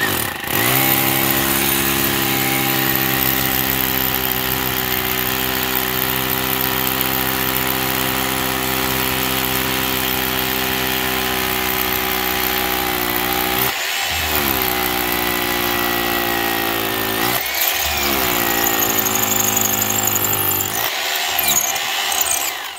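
Bosch Bulldog rotary hammer with a half-inch concrete bit drilling into a concrete slab, running steadily at a loud level. Its motor pitch sags and recovers twice, about 14 and 17 seconds in, and it stops near the end.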